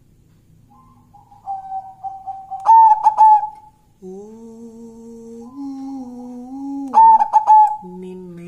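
Zebra dove (perkutut) cooing: two short bursts of loud, clipped notes, about four seconds apart. Between them a man sings long held notes.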